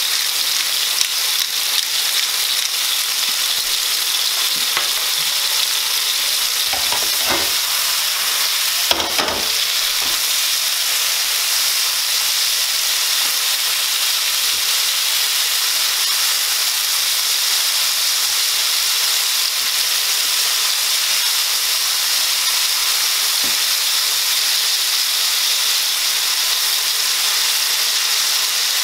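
Sliced mushrooms sizzling steadily in hot olive oil in a frying pan, stirred with a wooden spoon. A few short knocks come about seven and nine seconds in.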